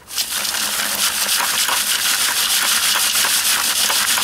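Biochar lumps shaken and rubbed in a round wire-mesh sieve: a steady gritty rasping and rattling of charcoal against the mesh as the small pieces are sifted through.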